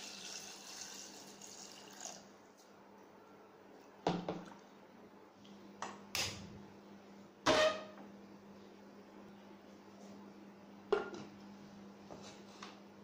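Water poured into an aluminium pressure cooker for about two seconds. Then a few separate sharp clicks and knocks follow, from a gas-stove spark lighter and the metal cooker being handled on the stove.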